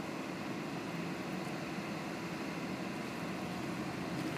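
Steady, low drone of distant engine noise with a faint hum in it.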